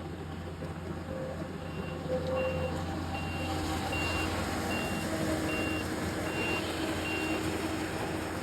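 A vehicle's reverse warning alarm beeping steadily, about eight short high beeps, over the low, steady running of its engine as it backs up.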